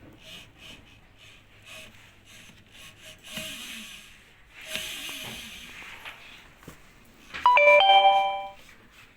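Short electronic chime of several steady notes, about seven and a half seconds in and lasting about a second; it is the loudest sound. Before it come light clicks and rubbing or handling noises.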